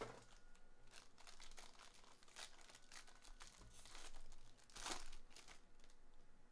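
Foil wrapper of a trading-card pack crinkling and tearing as it is opened and handled, with a louder crackle near the five-second mark.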